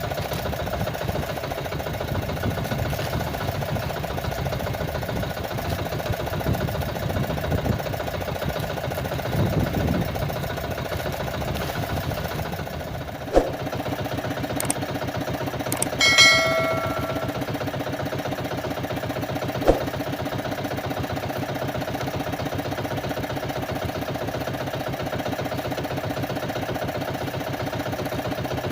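Small engine running steadily. A sharp knock comes about 13 seconds in, a brief ringing metallic clang about 16 seconds in, and another knock near 20 seconds.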